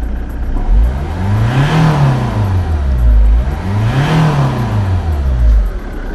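Ford Mondeo Mk3 2.0 TDCi four-cylinder turbo-diesel engine revved twice, each time rising smoothly in pitch and dropping back. The revving tests throttle response after a loose connection was pushed back on.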